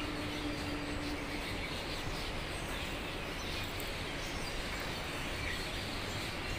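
Steady background noise with no distinct events, and a faint humming tone that fades out about a second and a half in.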